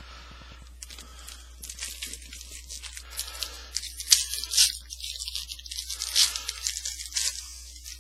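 Foil trading-card pack being torn open and crinkled: a run of short crackling tears and rustles, with the sharpest ones about halfway through and again near the end.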